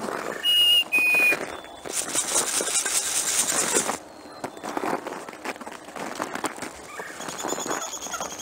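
A wild turkey flock feeding in snow, with many small clicks and rustles of scratching and pecking. Two short, loud, high whistled notes come about half a second and a second in, the second a little lower. A stretch of hissing rustle follows from about two to four seconds in.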